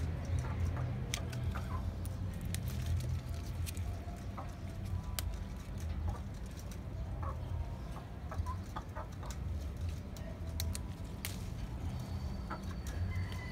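Chickens clucking now and then over a steady low hum, with scattered light clicks and rustles.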